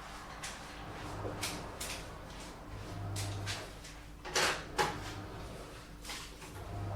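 Washing machine running, its low hum coming and going every couple of seconds, while dishes clink and clatter as they are washed. Two louder clatters come close together a little past halfway.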